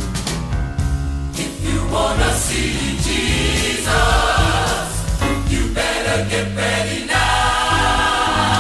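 Gospel choir singing in harmony over a band with bass and percussion, the voices swelling into loud held chords about two seconds in and again near the end.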